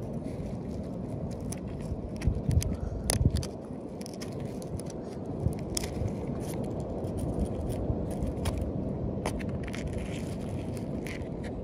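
A metal knife blade scraping crusty growth off an encrusted shell: scattered crisp clicks and crackles over a steady low rumbling scrape, loudest in a cluster of strokes about two to three seconds in.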